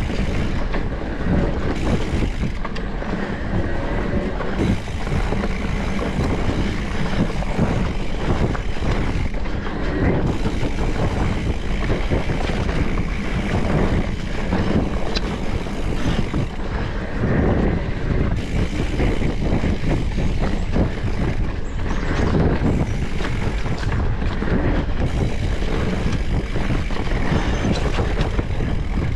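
Specialized Turbo Levo electric mountain bike ridden along a dirt trail: continuous tyre rumble, with the frame and chain rattling over bumps and wind buffeting the action-camera microphone.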